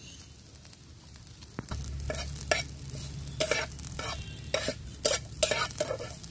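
Spatula stirring and scraping chopped onion and green chilli frying in oil in a black frying pan, with a light sizzle. About two seconds in, irregular scrapes and knocks of the spatula against the pan begin.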